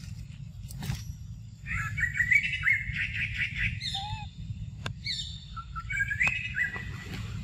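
Birds chirping in two spells of quick, high, rising notes, over a steady low rumble, with a few sharp clicks.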